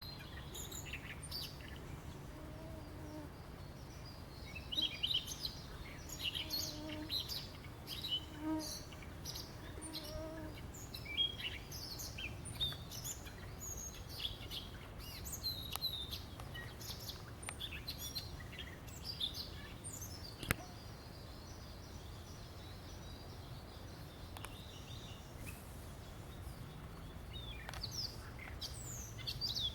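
Several songbirds chirping and calling in short high notes, busiest through the first two-thirds, with a low call repeated several times in the first ten seconds, over a steady low background rumble. A single sharp click about twenty seconds in.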